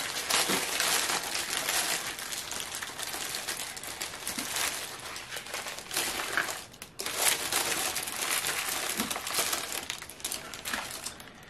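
Clear plastic zip-lock bags of diamond painting drills crinkling as they are handled, pulled out of a larger plastic bag and set down, with a short lull about seven seconds in.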